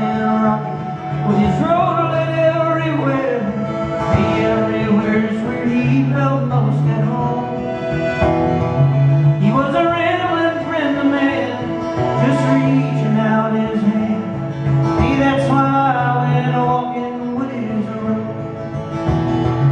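Live folk-country song: a man singing to his own strummed acoustic guitar, with sustained low accompanying notes underneath.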